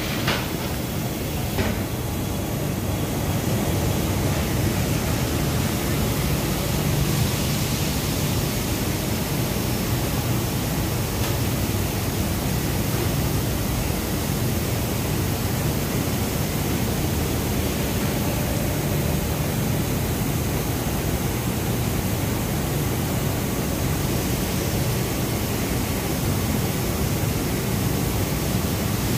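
Steady machinery noise of a yarn-dyeing factory floor: a constant hiss with a low hum underneath, unchanging throughout, with a couple of sharp clicks near the start.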